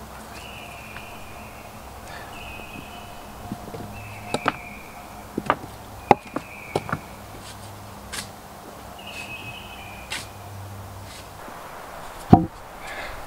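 Irregular sharp knocks of a hand tool striking at the foot of a wooden post as it is set into the ground, about eight blows in a cluster, then one louder knock near the end.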